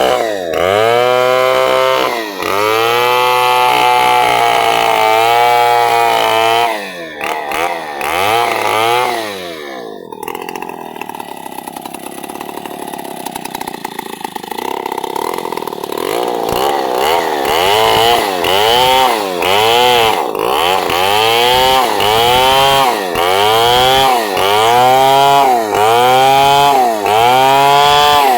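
Chainsaw ripping lengthwise through hardwood, its engine pitch dipping and recovering over and over as the chain bogs in the cut and frees again. About a third of the way in it eases off to a lower, quieter run for several seconds, then picks up again with regular dips roughly once a second.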